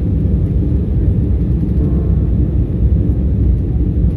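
Steady low rumble of jet airliner cabin noise in flight, engine and airflow noise heard from a window seat over the wing.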